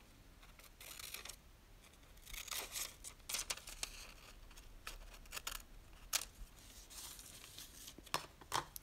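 Scissors cutting a sheet of thin paper: short snips and paper rustling at irregular intervals.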